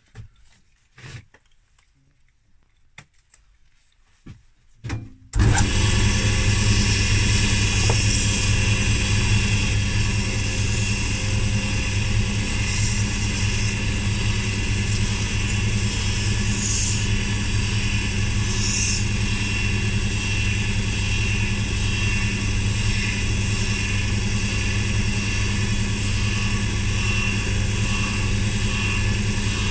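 Faint rustles and clicks of a face mask being put on, then a wood lathe switched on about five seconds in. It runs at a steady speed with a strong hum while a wooden pen blank spinning on it is sanded by hand.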